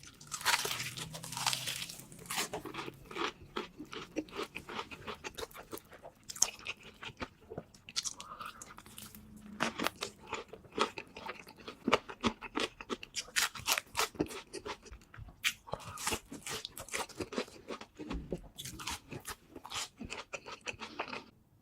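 A person biting into and chewing a burger close to the microphone: many crisp crunches and chewing sounds in quick succession throughout.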